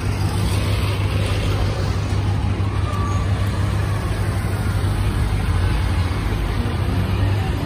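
Street traffic: a steady low engine hum with road noise from passing vehicles.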